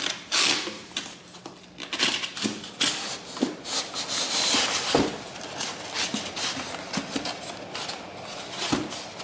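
Unpacking a blender by hand: plastic wrapping rustling and hard plastic blender parts scraping and knocking against a styrofoam packing insert, an irregular run of short rustles, scrapes and knocks.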